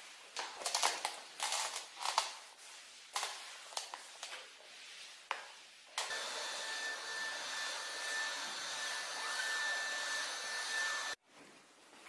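A floor mop swishing and rubbing in short, irregular strokes over a wooden floor. About halfway in, a steady whirring electric motor with a high whine starts abruptly, runs for about five seconds and cuts off suddenly.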